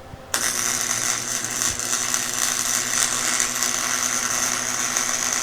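Electric arc welding on a steel axle mount: a steady, dense noise with a low hum under it, starting about a third of a second in.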